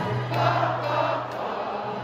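Large ballpark crowd singing along together to music played over the stadium speakers, swelling briefly about half a second in.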